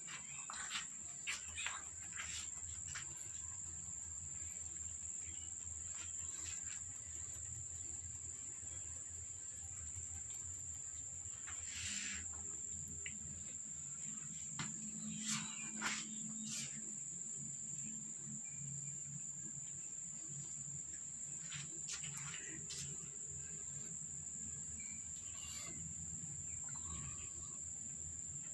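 Steady, unbroken high-pitched insect trill over a low background hum, with a few faint short rustles and taps.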